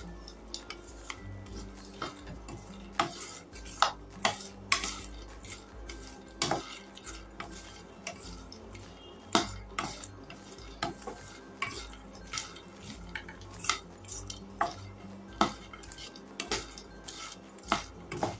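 Spatula stirring makhana (fox nuts) roasting in a pan: irregular scrapes and clinks against the pan, about one every half second to a second.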